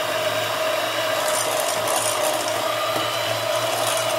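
Electric hand mixer running at a steady speed, its beaters whipping kiwi juice and chantilly cream in a bowl: a constant motor hum.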